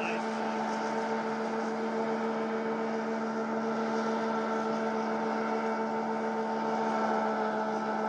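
Rescue hovercraft running at steady throttle: its engine and fan give a constant drone that holds one pitch throughout.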